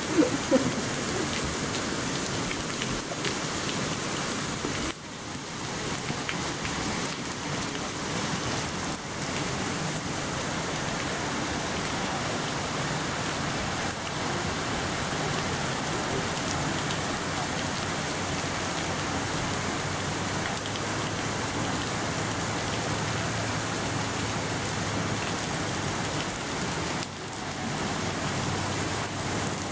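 Steady rush of falling water splashing at a 40-foot steel waterwheel, dipping briefly twice.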